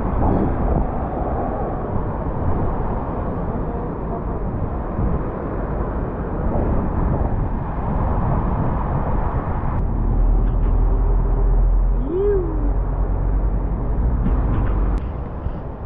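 Road traffic running steadily below, with wind rumbling on the microphone, heaviest in the second half. A short rising-then-falling tone sounds about twelve seconds in.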